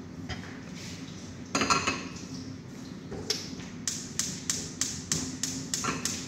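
Kitchen dishes and utensils clattering: one loud rattling clatter about a second and a half in, then a quick run of about ten sharp taps, three or four a second, over the last three seconds.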